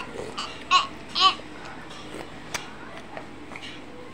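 A young child's wordless vocal sounds: three short calls that rise and fall in pitch in the first second and a half, then quiet with a few faint clicks.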